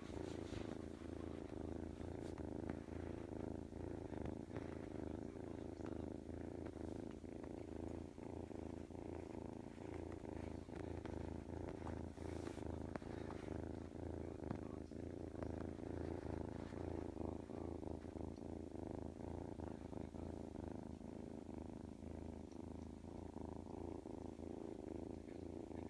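House cat purring steadily, a continuous low rumble.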